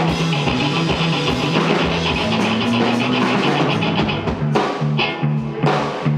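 Live rock band playing loud, with electric guitar and drum kit. About four seconds in, the dense wall of sound breaks into a choppy, stop-start rhythm of short hits.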